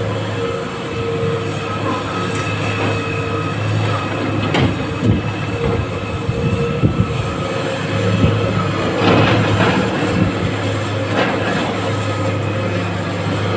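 Excavator's diesel engine running steadily with a held whine over it, with a few scattered knocks and short rattles of iron ore being handled.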